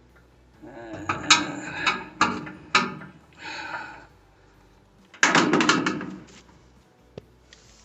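Handling noise from working on the washer's lid switch wiring: a run of clicks and knocks over a few seconds, then a louder scraping rattle lasting under a second, about five seconds in.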